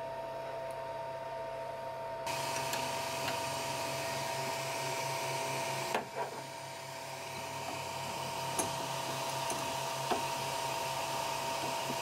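Flashforge Dreamer 3D printer running with a steady fan whir and hum while its hotends heat, getting louder about two seconds in. A few faint clicks of a wrench on the hotend.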